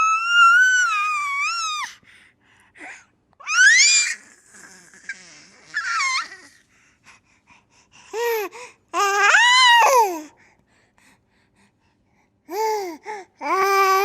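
Baby squealing and laughing: a long high squeal at the start, a sharply rising squeal about four seconds in, then bursts of arched, swooping laugh calls from about eight seconds and again near the end.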